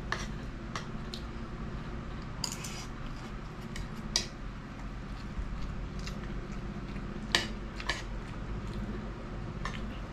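Spoon and fork clinking and scraping against a plate during a meal of rice and fish: scattered clinks, a quick run of them about two and a half seconds in and the loudest about seven seconds in, over a steady low hum.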